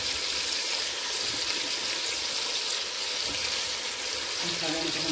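Raw mutton pieces frying in hot butter and oil in a pressure cooker, an even, steady sizzle.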